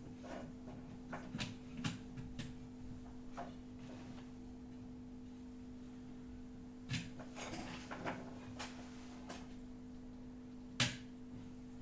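Scattered light clicks and taps, bunched near the start and again past the middle, with one sharper knock near the end, over a steady low electrical hum.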